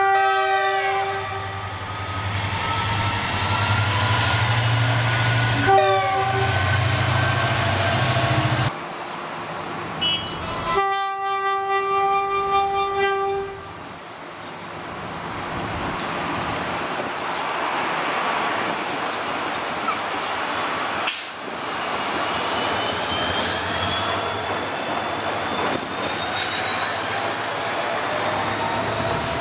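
Train locomotive horn sounding three times. The first blast drops in pitch as the locomotive passes right over, a second is short, and the third is held for a couple of seconds, all over the rumble of the running train. In the second half a train runs with a steady rushing noise, and thin whining tones slowly rise in pitch over it.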